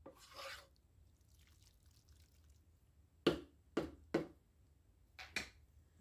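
A spoon stirring a thick, creamy chicken-and-mixed-vegetable filling bound with cream of mushroom soup in a pan: a few short, separate wet sounds, one just after the start, three around three to four seconds in and two more about five seconds in.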